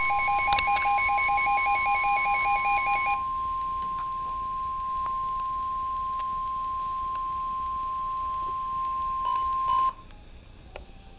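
NOAA Weather Radio's 1050 Hz warning alarm tone, a single steady pitch held for about ten seconds and cutting off sharply near the end, leaving faint radio hiss. This tone marks a warning-level alert, here a severe thunderstorm warning. For the first three seconds a rapid stepped beeping in two pitches rides over it.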